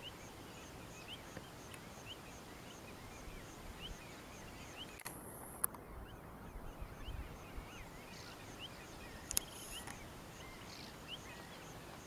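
Outdoor birdsong ambience: many short, scattered bird chirps over a faint, regular ticking high up. Two sharp clicks cut through, one about halfway and one about two-thirds of the way in.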